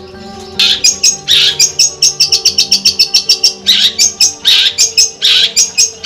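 Caged long-tailed shrike (cendet) singing hard in fast runs of sharp, rapid notes, several a second, in phrases broken by short gaps, starting about half a second in; the bird is in an over-birahi (overexcited breeding) state. Soft background music plays underneath.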